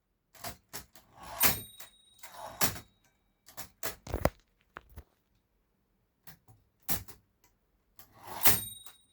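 Erika 10 manual typewriter's mechanism being worked: light clicks of keys and levers, and the carriage sliding and stopping with a clack as the tabulator key is used. The two loudest clacks come about a second and a half in and near the end, each with a short metallic ring.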